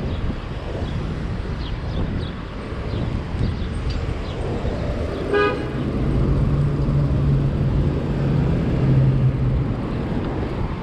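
A vehicle horn gives one short toot about halfway through, over steady street traffic noise. A low steady hum follows for a few seconds.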